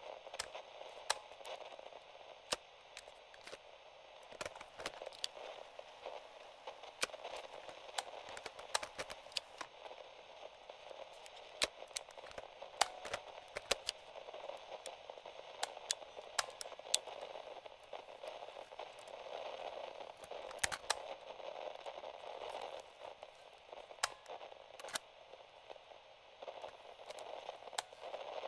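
Static from a vintage FM/AM cassette-corder radio as its tuning knob is turned, scanning between stations: a steady hiss with frequent sharp crackles and clicks.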